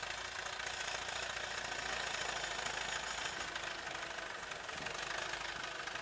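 Ursus C-360 tractor's four-cylinder diesel engine running steadily while tipping a trailer load of chopped corn silage.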